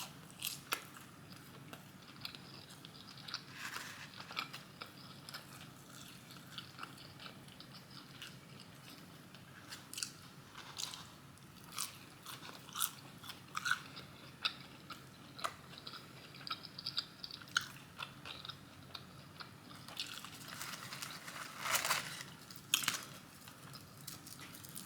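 Close-up eating sounds: crunchy bites and chewing of fried chicken tenders and fries, a scatter of sharp crackles and smacks, busiest about three-quarters of the way through.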